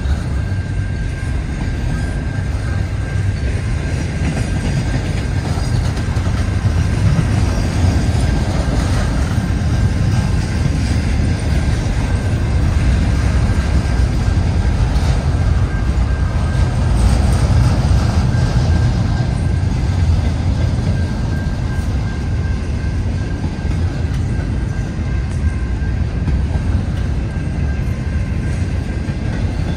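CN double-stack intermodal freight train's container well cars rolling past: a loud, steady rumble of steel wheels on rail.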